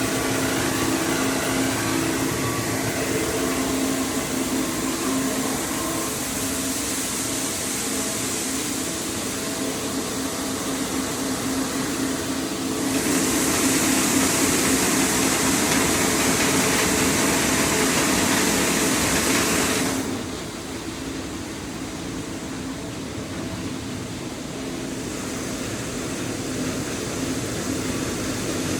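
Grain-handling machinery (bucket elevator legs and augers) running with a steady hum. About halfway through a louder rushing hiss joins in for about seven seconds, then cuts off suddenly, leaving the machinery running more quietly.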